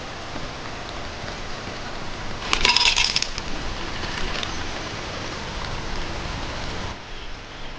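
Steady hiss of rain, with a short burst of sharp crackling clicks about two and a half seconds in.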